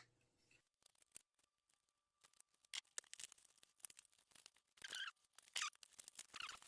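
Faint scattered clicks and short crinkling rustles of a Beyblade toy's cardboard-and-plastic retail packaging being handled and opened, busiest about five seconds in and near the end.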